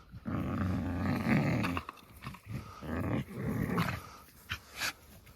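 A dog growling: one long growl of about a second and a half, then two shorter growls, with a couple of sharp clicks near the end.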